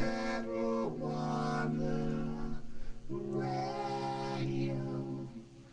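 Sung theme jingle for a medical marijuana radio show: a voice sings 'marijuana' in two long held phrases, with the level dropping away near the end.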